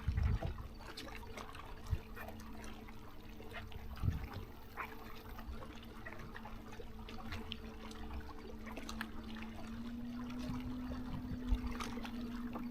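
Water trickling and lapping at a boat, with scattered small clicks and a faint steady hum that rises slightly in pitch about ten seconds in.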